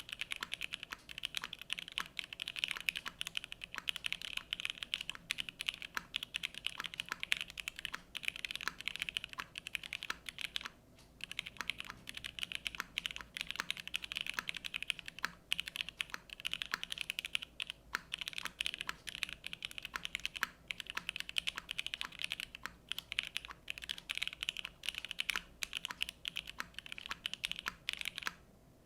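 Fast, continuous typing on a Keycult No. 1 TKL gasket-mount mechanical keyboard with OP Black switches, an FR4 half-plate and GMK keycaps. The stream of key clacks breaks off briefly a few times and stops just before the end.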